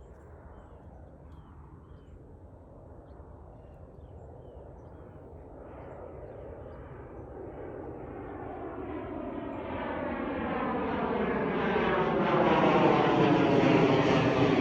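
Airplane flying low overhead, its engine noise growing steadily louder as it approaches and loudest near the end.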